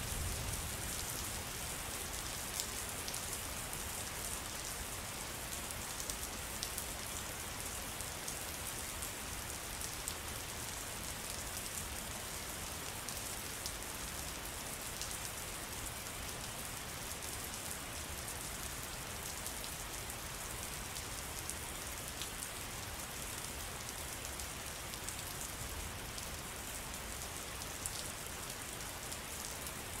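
Steady rainfall: a dense patter of raindrops, with many single drops ticking through it.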